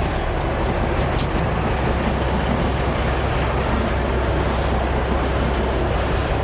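Dump truck's diesel engine running steadily with a constant low drone. A brief tick about a second in.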